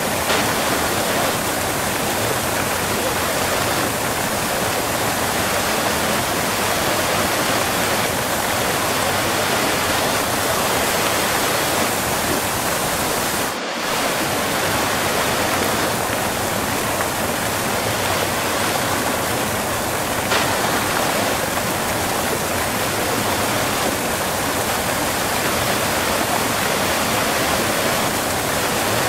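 Waterfall heard close up: a steady, dense rush of falling water, with a brief dip in the sound about halfway through.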